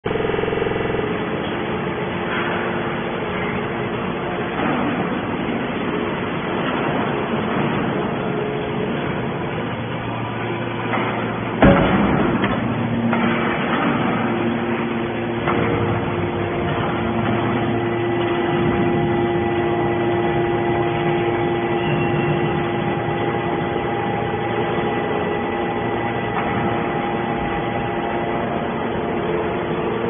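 Triple-action hydraulic metal scrap baler running as its rams compress scrap metal: a steady machine hum from the hydraulic power unit, with one loud bang about twelve seconds in and a steadier whine joining about halfway through.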